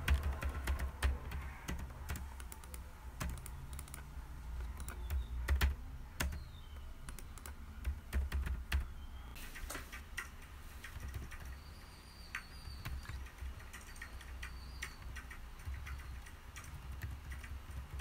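Typing on a computer keyboard: an irregular patter of key clicks, busier and heavier in the first half, lighter and sparser in the second half.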